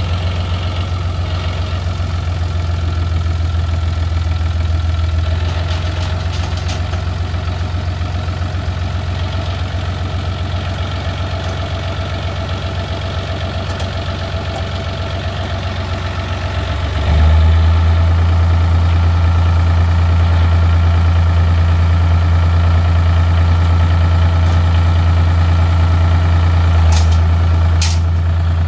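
John Deere utility tractor's diesel engine running steadily at idle. About two-thirds of the way through it gets suddenly louder and stays at that level.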